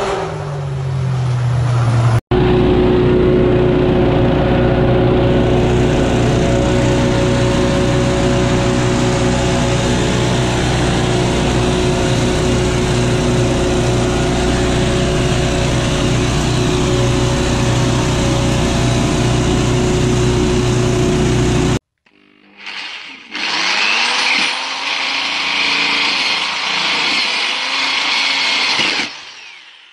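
Gasoline leaf blowers running steadily: a backpack blower working alongside a walk-behind blower. Near the end this gives way to a power drill whirring as it spins a disc. In the first two seconds a vehicle engine winds down in pitch.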